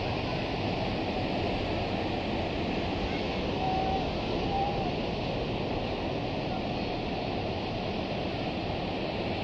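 Ocean surf breaking on a sandy beach: a steady, continuous rush of waves.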